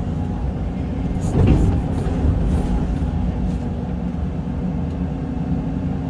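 Excavator's diesel engine running steadily under load while digging, with one louder clunk about a second and a half in.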